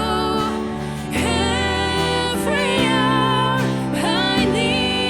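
Contemporary Christian worship music: a band playing sustained chords under a wavering sung melody line.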